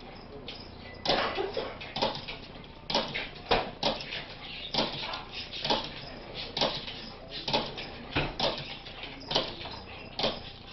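A dog jumping up and down over and over on a tile floor: about eleven thumps of its landing paws, one roughly every second in a steady rhythm.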